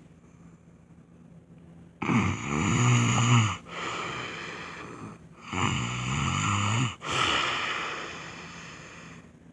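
A man snoring loudly in his sleep: two low, buzzing snores starting about two seconds in, each followed by a long breathy hiss that fades away.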